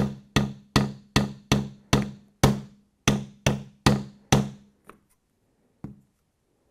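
Hammer striking a glued 3D-printed PETG joint held in a clamp against a wooden batten, in a steady run of blows at about two and a half a second, each with a short low ring. The blows stop about four and a half seconds in, followed by two lighter taps. The joint holds, the blows only denting the plastic.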